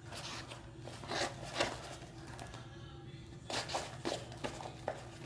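Slime being stirred in a cup: irregular sticky squelches and scrapes as the activator binds the glue and soap mixture into a ball.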